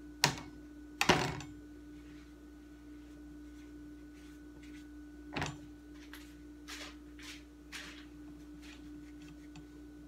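A few knocks and clicks from objects being handled, the loudest about a second in and another about halfway, with lighter ticks after, over a faint steady hum.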